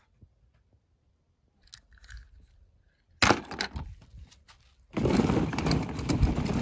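Hollow plastic ball-pit balls clattering against each other and a plastic tub as a hand rummages through them: a short burst a little after three seconds in, then a longer, denser rattle from about five seconds on.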